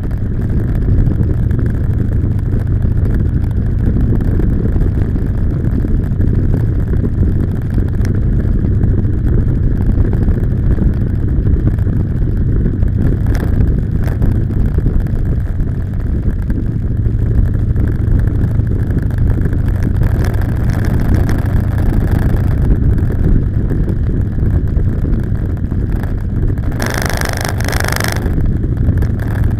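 Motorcycle engine running steadily at cruising speed, with road and wind rush on a bike-mounted camera. A brief burst of rushing noise comes near the end.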